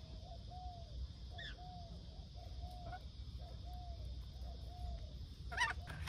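Rainbow lorikeets giving a string of faint, short, soft calls, about two a second, while foraging on the ground, with a louder call near the end.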